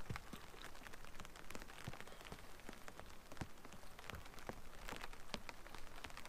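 Light drizzle pattering on the fabric canopy of a fishing brolly overhead, as scattered, irregular drop ticks over a faint hiss.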